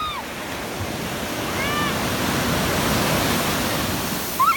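Surf: a wave breaks and its wash rushes up the sand, swelling to a peak about three seconds in and then easing. A brief high-pitched cry comes about halfway through, and a held high-pitched squeal starts right at the end.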